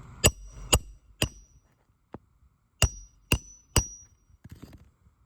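Hammer driving roofing nails into a replacement asphalt shingle: two runs of three sharp, ringing blows, about half a second apart.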